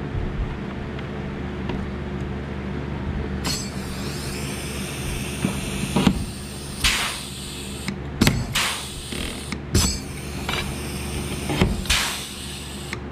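Pneumatic pop-rivet gun setting rivets in an aluminium boat floor. There is a hiss of air, and from about halfway through come several sharp snaps as rivets are pulled and their mandrels break, over a steady low hum.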